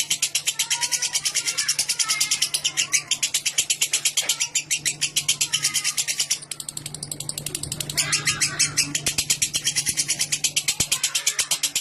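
Lovebird giving its long 'ngekek' call: a continuous, very rapid, high-pitched chattering trill of even pulses that falters briefly past the middle, then picks up again.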